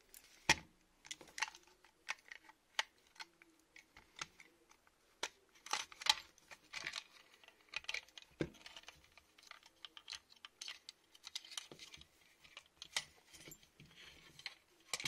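Irregular clicks, taps and light knocks of metal and plastic parts being handled as an airsoft gun's metal gearbox is worked free of its receiver and set down on a mat.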